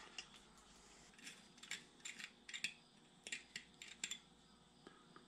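Faint metal-on-metal clicking and scraping in short clusters from about a second in: a hand tap being turned to cut threads into the drilled stud hole of a Farmall distributor's timing-advance plate.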